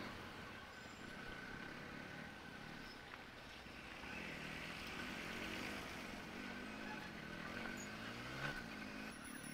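Yamaha R15 V3's single-cylinder engine running at low speed, its pitch rising and falling repeatedly as the throttle opens and closes, climbing most steeply near the end, over a bed of other traffic.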